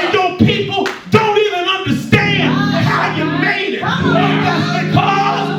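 Church music: held chords and guitar with a singing voice over them, punctuated by a few sharp hits in the first couple of seconds.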